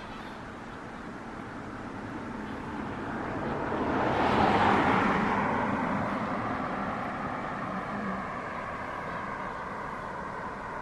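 A vehicle passing on the road: tyre and engine noise swells to a peak about four to five seconds in, then fades slowly.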